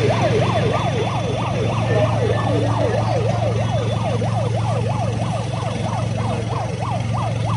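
Emergency vehicle siren on a fast yelp, its pitch sweeping up and down about three times a second, over a steady low engine-like drone.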